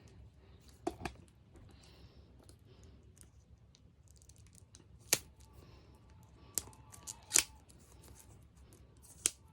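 Jigsaw puzzle box and its packaging being opened by hand: quiet cutting, tearing and rustling, broken by several sharp clicks and taps, the loudest about five, seven and nine seconds in.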